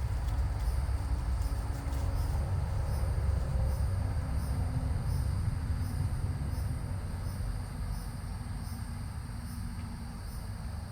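A steady low, motor-like rumble that slowly fades, with faint regular high ticks about twice a second.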